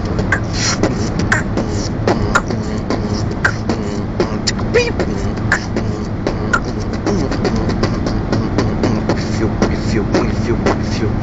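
Beatboxing close up: a fast, unbroken run of mouth-made clicks and percussive beats, with short pitched vocal sounds mixed in.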